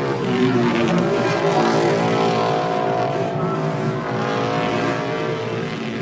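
Motorcycle engine running loudly, its pitch shifting up and down.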